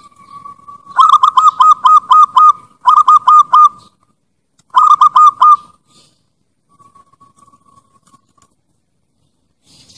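Bangkok-strain zebra dove (perkutut) cooing: a short held note, then three runs of rapid staccato coos, about seven, four and five notes, and a fainter drawn-out note after them.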